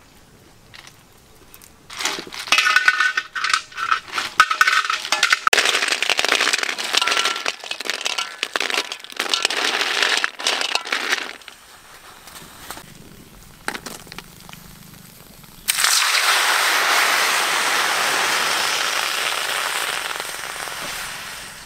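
Snail shells clatter and clink against one another and a metal bowl as a hand scrubs them, from about two seconds in to about eleven. About sixteen seconds in, a loud sizzle starts suddenly as the snails go into a hot wok over a wood fire, easing off near the end.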